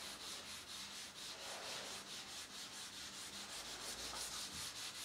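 Steady background hiss with a faint low hum and no distinct events: the recording's room or equipment noise during a pause in the talk.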